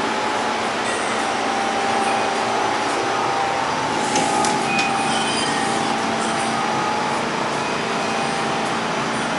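Inside a New York City Subway R46 car running in the tunnel: a steady noise of the wheels and running gear with a constant hum. A few short clicks and brief high squeaks come about four seconds in.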